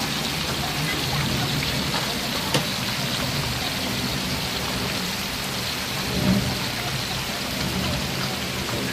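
Small fish frying in hot oil in a wok, a steady sizzle, with one sharp click about two and a half seconds in.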